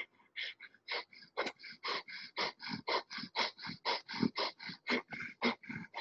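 Kundalini breath of fire: rapid, even, forceful breaths through the nose, about four a second.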